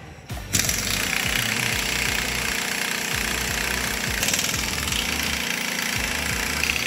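Pneumatic impact wrench hammering on a wheel's lug nut, starting abruptly about half a second in and running steadily with a rapid rattle.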